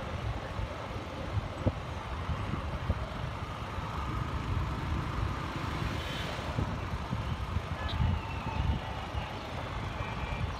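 Roadside street ambience with road traffic: an uneven low rumble throughout, and a faint high whine about six seconds in.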